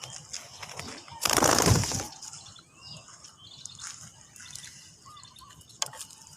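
Faint, scattered chirps of small birds, broken about a second in by a loud rush of noise lasting under a second.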